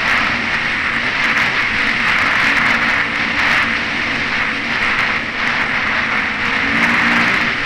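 Yamaha WR250 dirt bike's single-cylinder four-stroke engine running steadily under way, heard from a helmet camera with heavy wind rush over it. The engine note strengthens briefly near the end.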